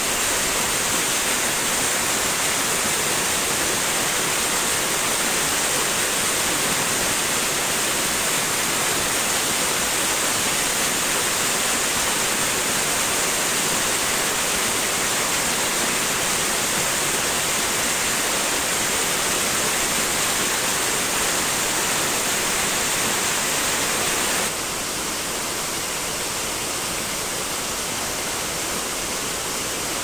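Small waterfall splashing steadily into a plunge pool, a continuous rush of falling water. Near the end it becomes slightly quieter and duller.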